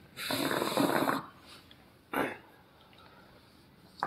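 Hookah gurgling as a puff is drawn through its pipe for about a second, followed by a shorter burst of the same kind about two seconds in.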